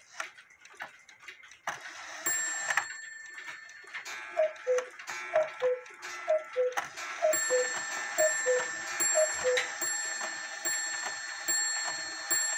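Schmeckenbecher cathedral clock ticking, then about two seconds in its hourly action sets off: a running clatter of knocks and ringing as the figure platform turns, with six two-note calls, high then low, about a second apart. The knocking is the figures hitting the door openings: the platform tilts because its hold-down clip is missing.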